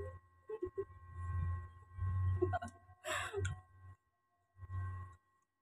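Eating sounds from a boiled-crab meal: crab shell being pulled and cracked apart by hand, with scattered small clicks, chewing and mouth noises, and a short breathy vocal sound about three seconds in.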